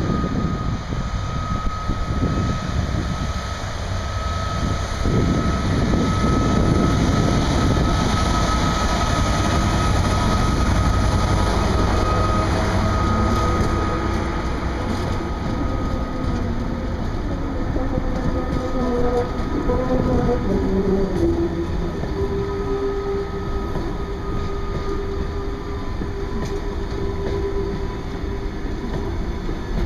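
Class 66 and G1206 diesel locomotives pass close with their engines running, followed by container wagons rolling by with a steady deep rumble and wheel clatter. A high steady whine runs through the first half, and wavering wheel squeals come from about two-thirds of the way in.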